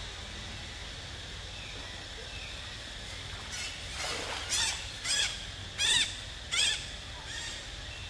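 Macaque screams: a run of about five short, high calls, each rising then falling in pitch, about half a second apart, starting around halfway through.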